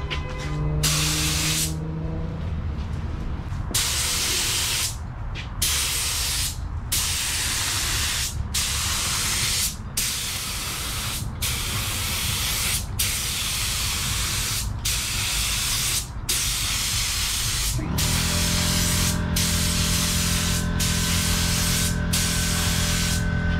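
Air-fed automotive paint spray gun hissing in a run of passes about a second and a half long, with short breaks between them as the trigger is released, spraying a coat of paint. A low machine hum runs underneath and gets louder about eighteen seconds in.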